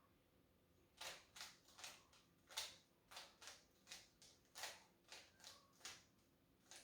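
Rubik's cube layers being twisted by hand, a string of about a dozen sharp plastic clicks at uneven spacing, roughly two a second, starting about a second in.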